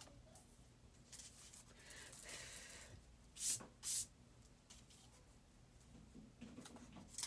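Quiet rustling of paper and card as a decorated CD sleeve trimmed with fiber yarn is picked up and handled, with two short, louder swishes about three and a half seconds in.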